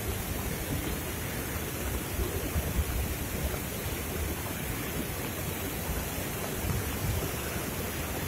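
Floodwater rushing in a swollen, muddy river: a steady, even rushing noise with an uneven low rumble underneath.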